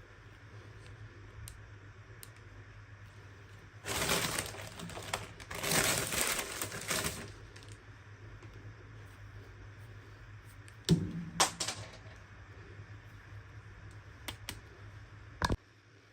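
Hands unboxing small plastic toys: a few seconds of crinkling rustle about four seconds in, then a handful of sharp plastic clicks and taps, one last one near the end, over a faint steady hum.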